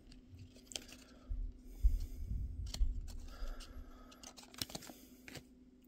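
Stack of glossy chrome trading cards handled and flipped by hand: scattered light clicks and soft rustles of card stock sliding over card, over a faint steady hum.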